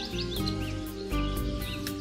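Background music with a steady beat, with a few short, high bird chirps over it.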